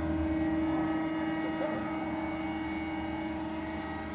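GY4240 semi-automatic horizontal band saw machine running with a steady machine whine. A deeper hum underneath cuts out about half a second in, and the whine carries on, slowly fading a little.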